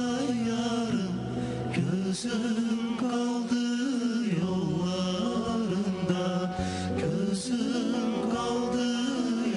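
Male singers performing a pop song live into handheld microphones over musical accompaniment, the sung melody gliding and held on long notes.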